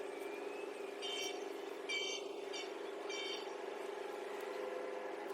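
A steady low drone of several even tones, with four short, high, buzzy calls about one to three and a half seconds in, the second the loudest.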